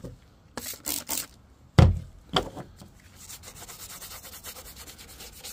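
A few knocks, the loudest a deep thump about two seconds in, then a stiff-bristle brush scrubbing a plastic dashboard panel in quick, even strokes, about five a second, from about three seconds in.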